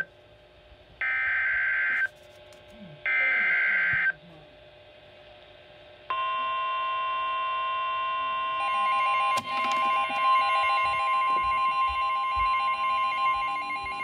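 Emergency Alert System SAME header from NOAA Weather Radio, played through a Midland weather radio's speaker: the last two of three harsh, screeching digital data bursts, each about a second long and a second apart. After a two-second pause, the steady 1050 Hz attention tone starts, joined a couple of seconds later by a second, pulsing beep. It announces the special marine warning that follows.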